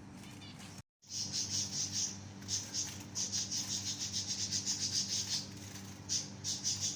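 Zebra finches calling, a fast run of high, chirping notes several times a second, over a steady low hum. The sound cuts out briefly about a second in before the chirping starts.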